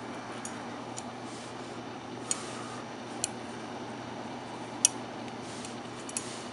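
Steady hiss with about half a dozen sharp, brief ticks, the loudest about three-quarters of the way through: a camcorder's autofocus hunting in and out of focus.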